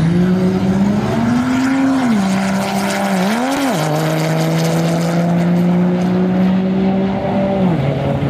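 A 6.7 Cummins inline-six turbodiesel in a Ram pickup making a drag-strip pass. The engine note climbs, dips twice as it shifts at about two and three and a half seconds in, then holds steady before falling near the end, with a high thin whistle above it.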